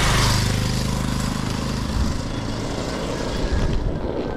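Motorcycle engine passing close by, loudest at the start and fading away over the next two seconds or so.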